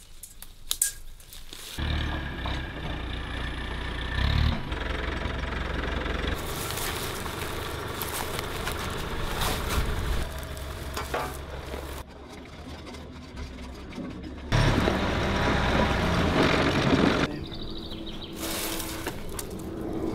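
Diesel excavator engine running steadily while it lifts a scrap steel beam on slings, with scattered knocks and clanks. The sound changes abruptly several times.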